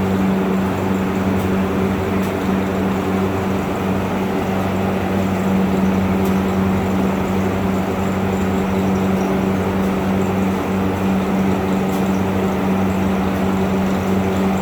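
Steady machine hum with a strong low tone, unchanging throughout.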